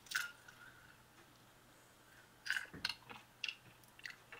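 Faint wet chewing and lip-smacking of someone eating a chicken wing: one smack just after the start, then a run of short smacks and clicks in the second half.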